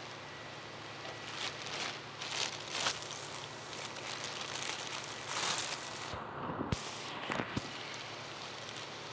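Clear plastic fish-shipping bags crinkling and rustling in short bursts as they are pulled open and handled.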